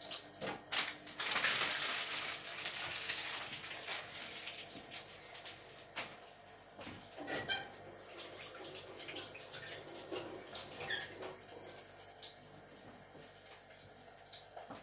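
Water running from a kitchen tap for about three seconds, beginning about a second in, as hands are rinsed. After it come scattered small knocks and clatter.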